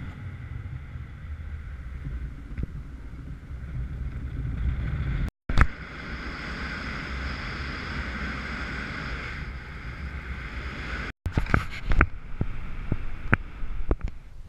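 Airflow buffeting the camera microphone in paraglider flight: a steady low wind rumble with no voice. The sound cuts out completely for a moment twice, and near the end a run of sharp clicks and knocks comes through.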